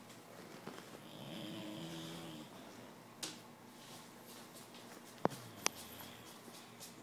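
A puppy snoring: one long, pitched snore from about a second in to about two and a half seconds, then quieter breathing. Three sharp clicks come later on.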